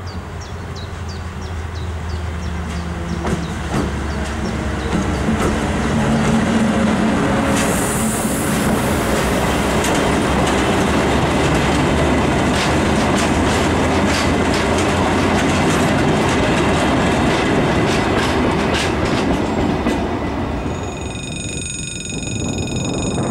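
Diesel freight locomotive approaching and passing, its engine hum giving way to the loud rumble of heavy freight wagons and the clickety-clack of their wheels over the rail joints. A brief high-pitched squeal comes about eight seconds in. Near the end the rumble fades and a few steady high tones begin.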